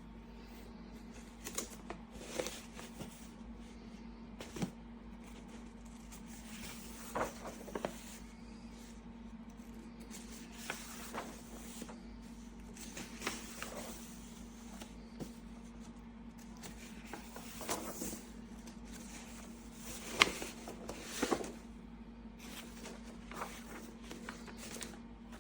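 Scattered light clicks and knocks of hard objects being handled and set down, a dozen or so spread out irregularly, the sharpest about twenty seconds in, over a steady low hum.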